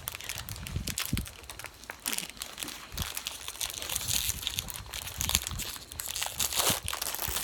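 Plastic snack wrapper crinkling with dense, irregular crackles as it is handled and opened.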